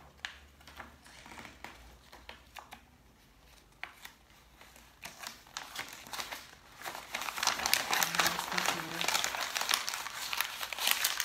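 Paper being handled with soft rustles and small taps as a folded document is opened, then from about seven seconds in a sheet is crumpled into a ball, with loud, dense crinkling.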